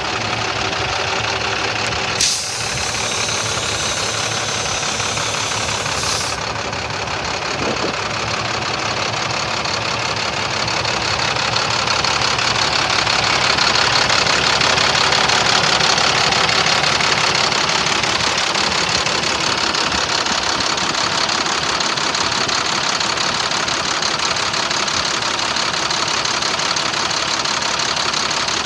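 International DT466 inline-six diesel engine idling steadily. A hiss starts sharply about two seconds in and stops about four seconds later, and the engine grows louder after about ten seconds.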